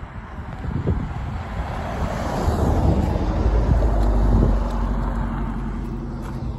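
A road vehicle passing close by, its low rumble swelling and fading over a few seconds, with wind buffeting the microphone.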